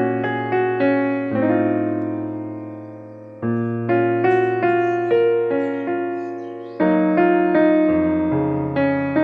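Background piano music: gentle chords struck and left to ring and fade, changing every second or so, with one long held chord fading away before the next comes in.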